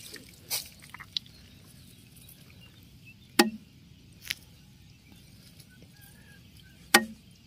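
Two sharp knocks about three and a half seconds apart, with a couple of fainter taps, over a low, steady background.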